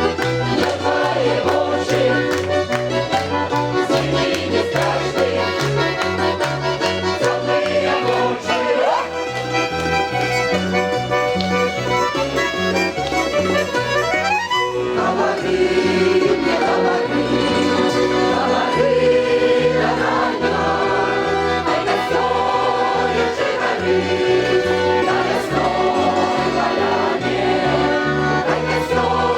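Mixed folk choir singing with instrumental accompaniment, over a steady bass line that alternates between two notes in a bouncing rhythm.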